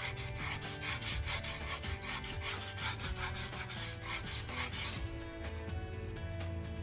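80-grit sandpaper scrubbed back and forth on the curb-rashed edge of an aluminium alloy wheel, about three rasping strokes a second, stopping about five seconds in.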